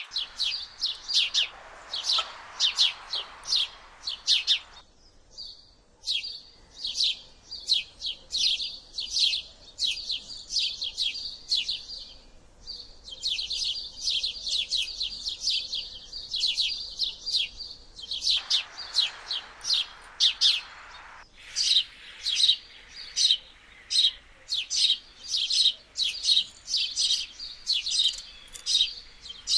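House sparrow chirping: a steady stream of short, sharp chirps, several a second, with only brief lulls.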